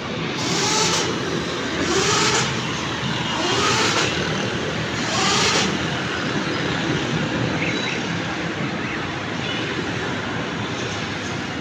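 Borehole drilling rig's engine running steadily, with four short surges about a second and a half apart in the first six seconds, each with a rising whine and a hiss.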